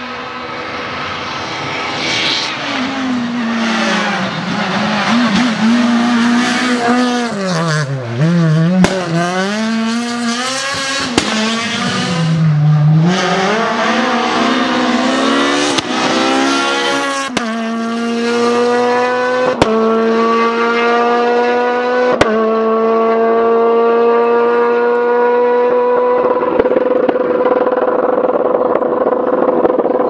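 Renault Clio R3 rally car's four-cylinder engine at racing revs. The pitch swoops down and back up as the car brakes and downshifts for corners, then climbs in long pulls broken by three sharp upshifts a couple of seconds apart.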